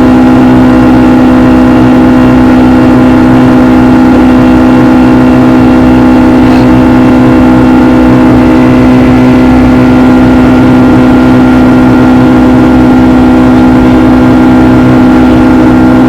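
Steady cabin drone of a Boeing 757-200's twin turbofan engines in flight: a strong, even hum with several fainter steady tones over a constant rush of air.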